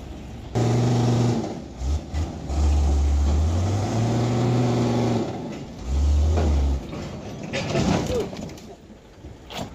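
Tow truck's diesel engine revving hard in several long pulls, its note stepping up and down, as it hauls a wrecked truck up out of a ravine.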